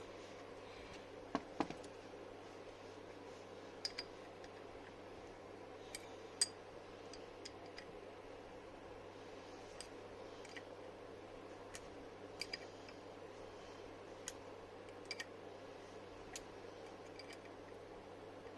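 Scattered light clicks and taps, about a dozen spread irregularly, over a steady low hum.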